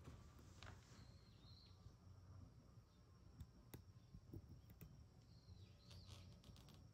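Near silence: faint outdoor ambience with a few soft bird chirps about a second in and again near the end, over a thin, steady high-pitched whine.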